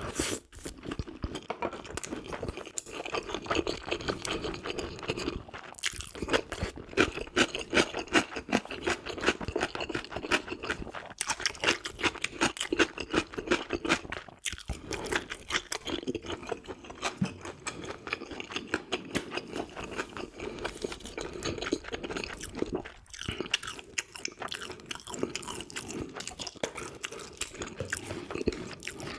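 Close-miked chewing of food, a dense run of rapid crunches and wet mouth sounds, broken by short pauses about six, fourteen and twenty-three seconds in.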